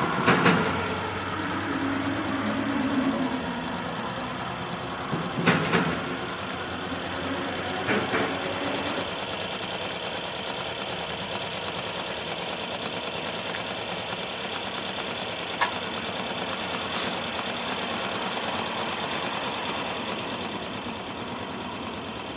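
Motor of a radio-controlled Seawind seaplane model running steadily with its propeller, a high-pitched buzz with many overtones. A few short sharp knocks stand out, about half a second, five and a half and eight seconds in.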